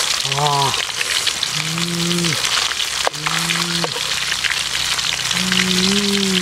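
Two whole fish frying in hot oil in a metal wok, a steady sizzling crackle, with a click of the metal spatula against the pan about three seconds in. A low, steady-pitched hum-like tone comes in four times, the last and longest about two seconds.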